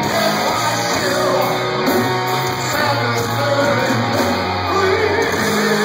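Live rock band playing loudly: distorted electric guitars and drums, with a singer's voice over them.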